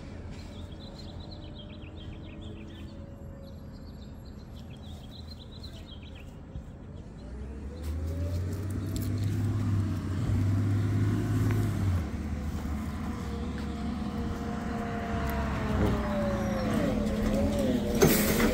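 Garbage truck running nearby, growing louder about eight seconds in, its engine note and whines rising and falling. Birds chirp faintly in the first few seconds.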